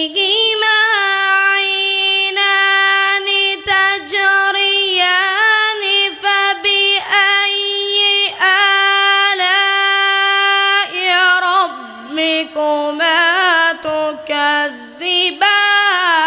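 A boy's solo voice reciting the Quran in melodic tajweed style, amplified through a microphone. He holds long, high notes with wavering ornaments, broken by short pauses between phrases.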